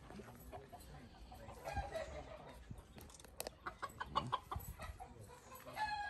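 Gamecock roosters clucking: a few short, faint calls scattered through, with a pitched call near the end.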